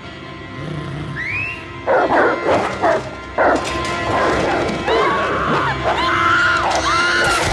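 A pack of hounds barking and snarling in loud bursts from about two seconds in, mixed with high arching cries, over a dramatic music score.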